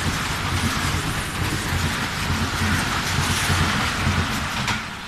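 Khyber Mail passenger coaches passing a station platform at speed: a steady rush of air and rail noise over a repeated clatter of wheels. The sound falls away near the end as the tail of the train goes by.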